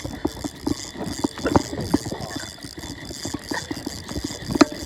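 A run of irregular sharp clicks and knocks, several a second, with one louder knock near the end.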